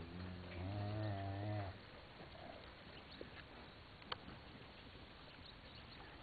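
A cow moos once, a low, wavering call of about two seconds at the start. About four seconds in there is a single short click.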